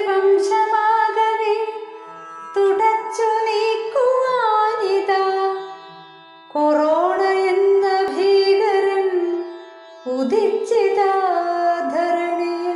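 Music in a Carnatic (South Indian classical) style: a melody of gliding notes in phrases of about three seconds, with short pauses between them.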